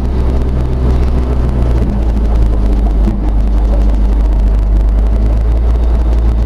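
Pickup truck engine running with a steady low drone while hauling a log.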